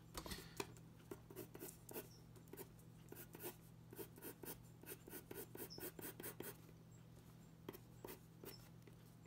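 Graphite pencil scratching on drawing paper in quick, faint sketching strokes, busiest for the first six seconds or so and sparser near the end.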